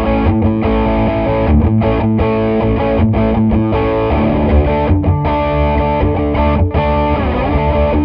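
Distorted electric guitar playing sustained chords with short breaks between them. The guitar is a Jazzmaster-style guitar on its Porter Modern J90 P-90-style bridge pickup, giving a thick, crunchy tone.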